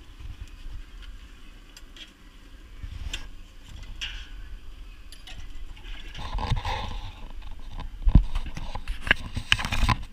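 Street food stall sounds: a low handling rumble with scattered clinks and knocks of steel utensils and plates, a sharp knock about eight seconds in and a busier clatter shortly before it.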